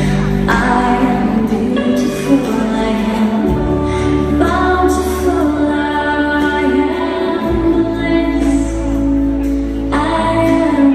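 Music with a woman singing over held bass notes that change about every four seconds.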